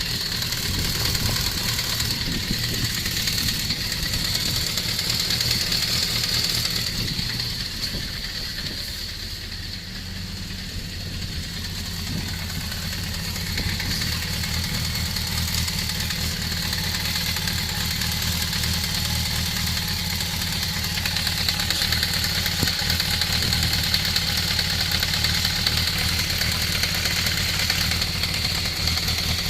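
Kawasaki ZZR400 motorcycle's inline-four engine idling, with a knock in the engine.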